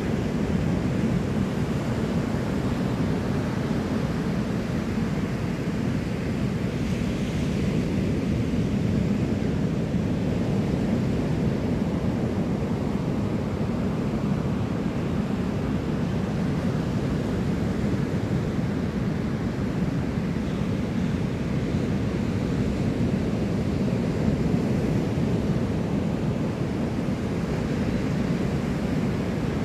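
Ocean surf breaking steadily on a sandy beach, mixed with low wind rumble on the microphone.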